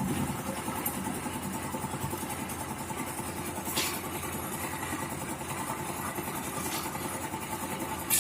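An engine running steadily at an even idle, with a couple of short knocks in the middle.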